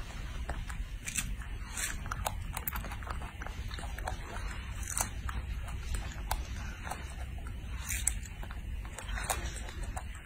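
Baby macaque chewing and smacking on strawberries: a quick run of small mouth clicks and smacks, a few louder than the rest.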